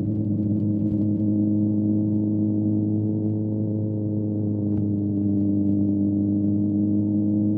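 Motorcycle engine running at a steady speed, one constant note that sags slightly in pitch about halfway through and comes back up, with faint scattered ticks over it.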